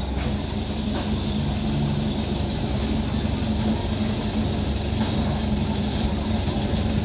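Small narrow-gauge mine locomotive running slowly along its track: a steady low hum over a rumble.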